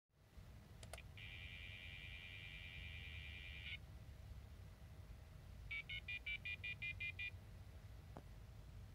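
Internal 2400-baud modem of a Compudyne 3SL/25 laptop dialing out, heard faintly through its speaker. It clicks as it goes off hook, plays the line's dial tone for about two and a half seconds, then tone-dials about ten digits in quick succession. A single click near the end.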